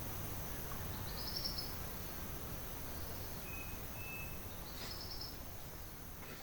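Tropical forest ambience: a steady high insect hum under a light background hiss, with a bird giving a short, rapid trilled phrase twice, about a second in and near the end, and two brief thin whistled notes in between.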